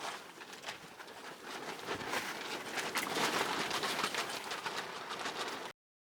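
Outdoor ambience with a bird calling, over a steady hiss and scattered faint clicks; the sound cuts off abruptly near the end.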